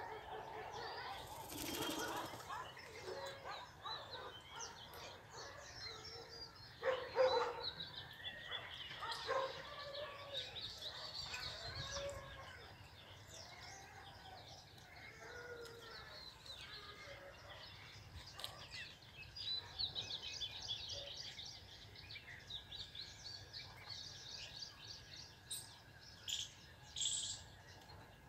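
Many short, high bird chirps and calls with wing flapping and fluttering; the loudest flutter comes about seven seconds in, and the chirps crowd together near the end.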